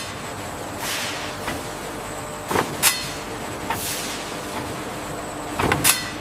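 A machine drones steadily, with a series of short, sharp hisses of released compressed air, about six of them.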